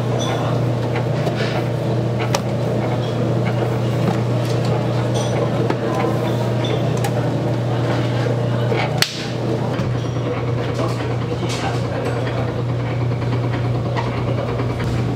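Steady machine hum of kitchen equipment, with scattered clicks and knocks of kitchen work and one sharp click about nine seconds in.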